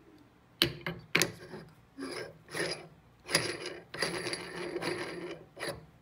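Heavy knurled steel lid of a critical point dryer's pressure chamber set down with two sharp metal clanks, then screwed down onto the chamber's threaded steel rim: a run of metal-on-metal grating from the threads, ending in a knock as it seats tight to seal the chamber.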